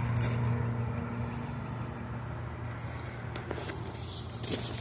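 A steady low mechanical hum over outdoor background noise, with a few faint taps near the end.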